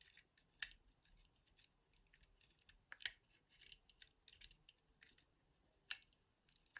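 Faint, irregular metallic clicks and scrapes of a pick and wire tension tool working the levers inside a lever lock, with sharper clicks about three and six seconds in.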